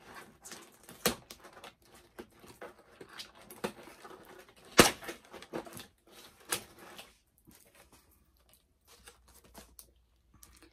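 Cardboard and plastic doll packaging being handled: a run of rustles and clicks with a few sharper knocks, the loudest about five seconds in, then only faint scattered clicks for the last few seconds.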